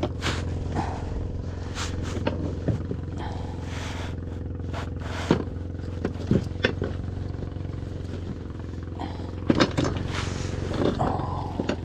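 Small outrigger boat's engine running steadily, with several short rushes of noise and a few clicks over it.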